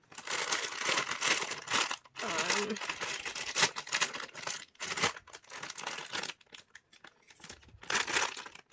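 Glossy plastic wrapper of a toy surprise ball crinkling and tearing as hands crumple and pull at it, in several bursts, with a last burst near the end as scissors cut into it.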